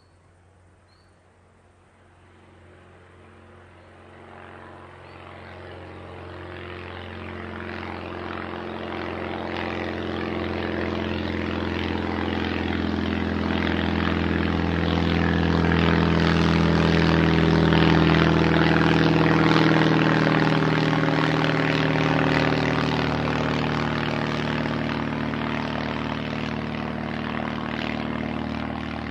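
Small propeller plane flying over, its engine drone rising from faint to loud over about fifteen seconds. It is loudest a little past the middle, then eases off slightly as it passes.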